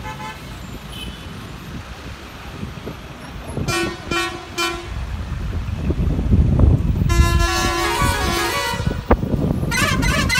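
Road traffic with vehicle horns honking: three short toots about four seconds in, then a longer horn blast, over a steady low rumble of engines and wind. Near the end a warbling, wavering sound starts.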